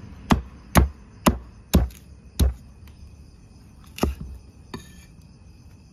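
Cleaver chopping galangal on a thick round wooden chopping block: five sharp chops about half a second apart, then a pause and one more chop about four seconds in.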